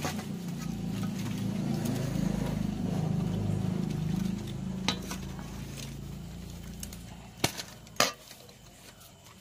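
A low rumble with a few sharp clinks of dishes, one about five seconds in and two close together near the end.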